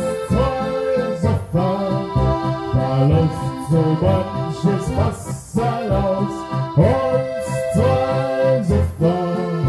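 Steirische Harmonika (Styrian diatonic button accordion) playing a Bohemian brass-band tune, with a pulsing bass under sustained chords and melody.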